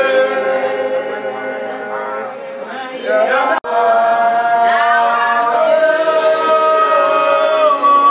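Several voices singing together in slow, long-held notes, with no instruments to be heard. The singing cuts out for an instant a little under halfway through, then carries on.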